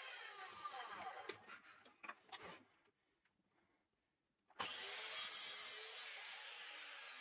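Metabo sliding mitre saw cutting 12 mm birch plywood: a few knocks as the piece is set against the fence, a short silence, then the saw starts abruptly about four and a half seconds in and runs through the cut.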